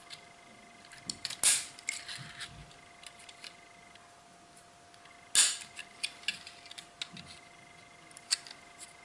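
Electronics side cutters snipping through the plastic interior segments of a Trix Express H0 coach: two sharp snaps, about a second and a half in and again about four seconds later, with lighter clicks of the plastic part and tool being handled in between.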